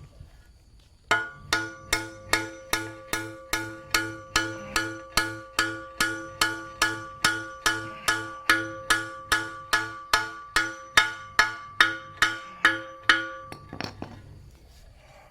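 Hammer blows on the steel head of a hoe, struck steadily about three times a second, each blow ringing with a bell-like metallic tone. The hammering starts about a second in and stops shortly before the end.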